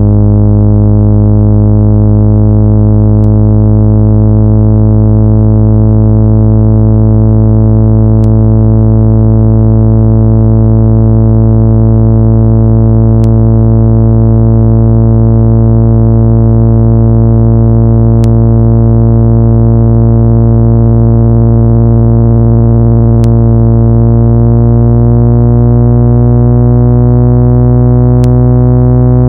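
Loud, steady electronic tone played to push water and dust out of a phone speaker, a low hum with a dense stack of overtones, some of them slowly drifting in pitch. A faint tick recurs about every five seconds.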